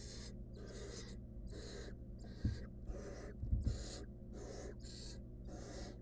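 Barn owl nestlings hissing their rasping begging calls (the 'snoring' food call), repeated about twice a second. A few dull thumps come about two and a half and three and a half seconds in.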